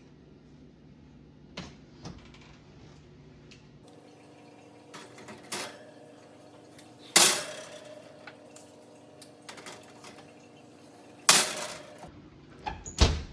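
Metal donut pan and oven being handled: a few light knocks, then two loud clanks with a ringing tail, about halfway through and again near the end. A faint steady hum runs underneath.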